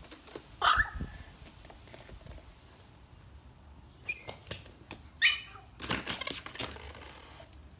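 Yorkshire terrier giving a few short, high-pitched barks: about a second in, then twice more around four and five seconds in. A quick cluster of knocks and rustles follows near six seconds.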